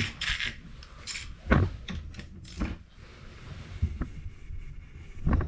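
Metal tools clinking and knocking: several separate clanks and jingles of hand tools and engine parts being handled during an engine teardown.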